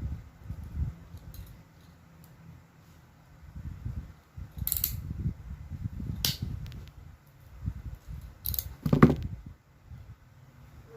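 Rustling and handling of a UTP network cable as its uneven end is trimmed, with a few sharp snips or clicks about halfway through and a louder clack near the end.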